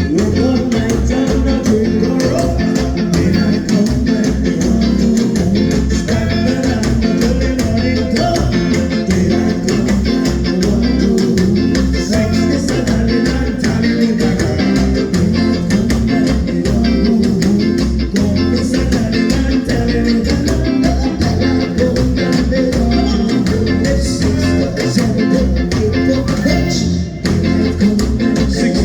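Live ska band playing, with guitar and bass guitar over a steady pulsing bass line.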